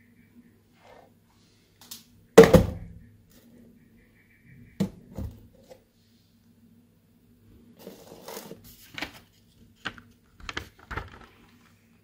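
Handling noise from a smartphone and its packaging on a table. A single loud thump comes about two and a half seconds in, followed by a few light knocks, a short rustle of plastic and several sharp clicks near the end as the phone's plastic protective film is handled.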